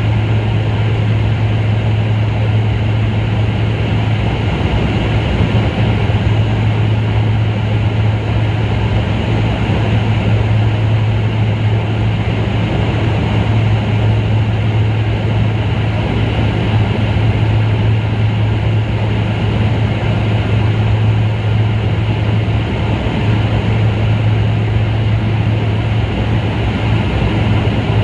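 Steady drone of a sightseeing aircraft's engine heard inside its cabin in level flight: a loud, constant low hum under an even rushing hiss.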